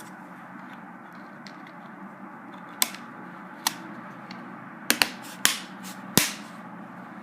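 Plastic bottom cover panel of an Acer Aspire One D250 netbook being pressed back into place: six sharp plastic clicks, spread unevenly between about three and six seconds in.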